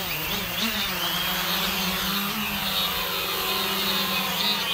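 Quadcopter's electric motors and propellers spinning up and lifting off: a steady buzzing hum whose pitch wavers up and down as the throttle is worked.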